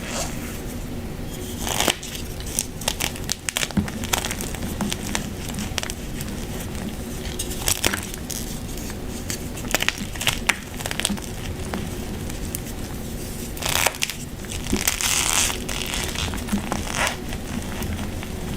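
Gym chalk being squeezed and crushed by hand, crackling and squeaking with many small clicks. There are a few louder crunching stretches, about two seconds in and again from about fourteen to seventeen seconds in.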